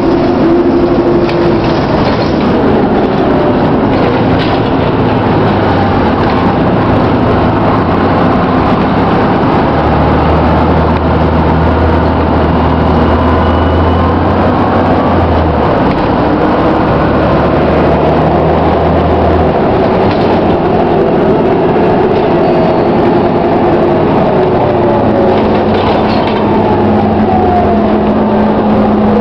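Iveco 480 city bus under way, heard from inside the passenger cabin: the diesel engine and ZF automatic gearbox run under steady road and body noise. The low engine drone shifts in pitch several times and is strongest in the middle of the stretch, as the bus changes speed.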